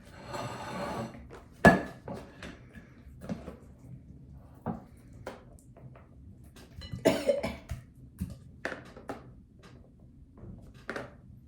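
Sauced nuggets being handled and set onto a plate: scattered taps and clinks of dishes, a rustle in the first second, and one sharp knock a little under two seconds in.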